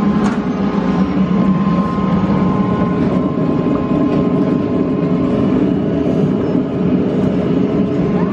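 Kiddie helicopter ride's drive machinery running as the ride turns: a steady low hum with a faint steady whine above it.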